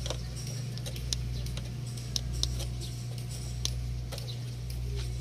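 Scattered light clicks and ticks from a hand oil can being worked while oiling a rusty hood lock, at irregular moments over a steady low hum.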